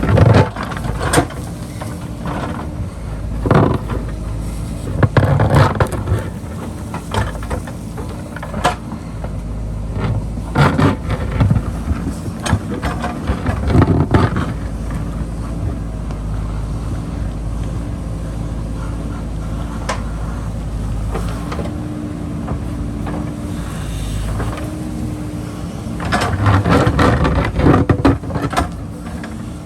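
JCB backhoe loader's diesel engine running steadily while digging into rocky hillside ground, with repeated knocks and scrapes from the digging that are busiest near the end.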